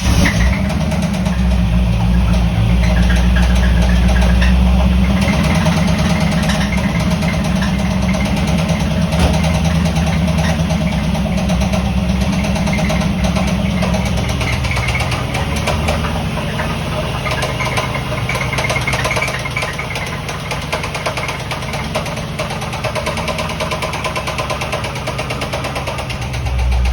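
1988 Corvette's 5.7-litre V8 idling, heard at the exhaust, running evenly with no misfire: the car has a knock and squeak whose source the owner is trying to find.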